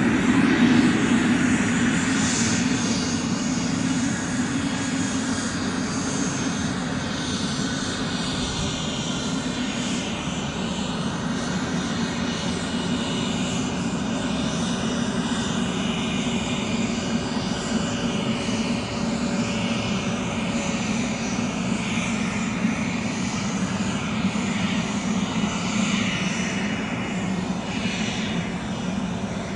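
Cessna 525B Citation CJ3 business jet taxiing, its twin Williams FJ44 turbofans running at low taxi power: a steady engine drone with a faint whine above it.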